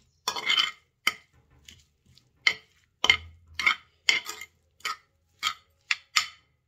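Metal spoon scraping and clinking against a terracotta clay bowl while stirring diced boiled potatoes and chopped coriander: about a dozen short, uneven clinks and scrapes.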